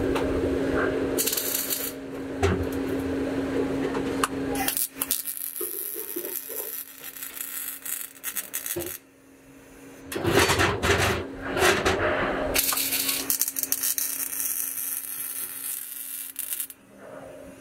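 MIG welding arc crackling in several runs of a few seconds each as a flange is welded onto a steel muffler shell. A steady hum lies under the first few seconds.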